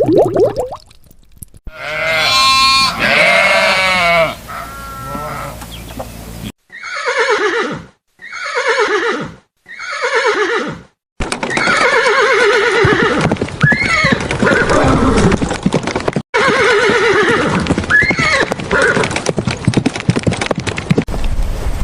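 A run of farm-animal calls cut from several clips: first a long call with many overtones, then three short calls that each fall in pitch, then more falling calls over a steady noisy background with two brief high chirps.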